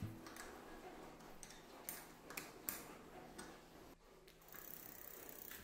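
Faint, irregular clicks and light metallic ticks from hands and a wrench working on a bicycle's V-brake.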